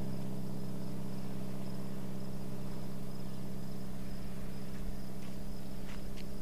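Steady low engine drone of a slow-moving diesel locomotive, holding one pitch. Crickets chirp faintly and continuously above it.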